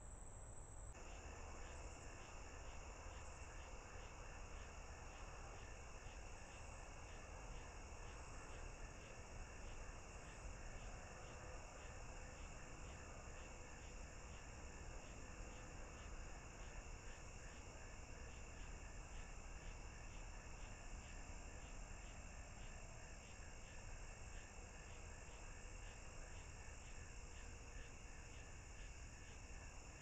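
Faint chorus of insects, steady high chirring with a regular repeating chirp layered over it, heard over low hiss and rumble from the camera's microphone. The chorus changes abruptly about a second in.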